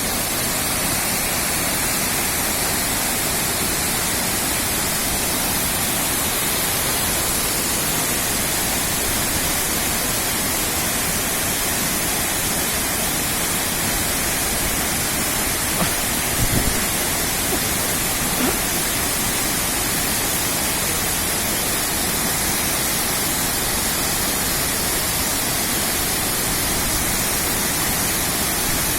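Shaki waterfall: a steady rush of falling water, with a few brief faint knocks a little past halfway.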